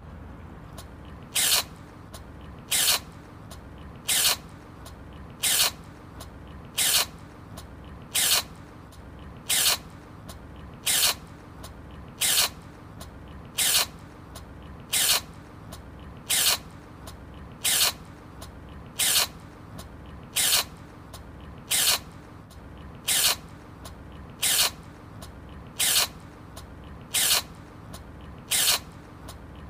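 A small kitten sneezing: one short, sharp, airy sneeze about every one and a half seconds. The same sneeze repeats at perfectly even spacing as a loop, over a low steady hum.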